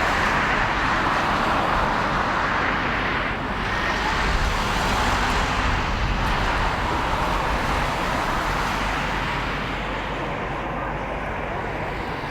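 Jet engine noise of a departing Boeing 777F freighter: a steady rushing sound that slowly fades in the second half as the aircraft climbs away.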